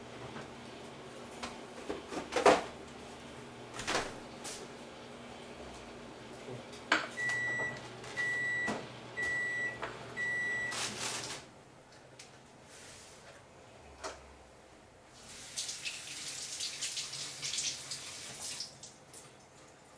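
Kitchen work sounds: a few sharp knocks and clicks, the loudest about two seconds in, then an appliance beeps four times over a low hum that stops when the beeping ends. Near the end a tap runs into the sink for a few seconds.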